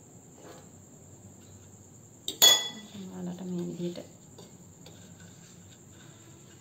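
A metal spoon knocks once against a glass bowl of batter, a sharp ringing clink about two and a half seconds in, among soft handling noises. A steady high-pitched trill runs behind throughout.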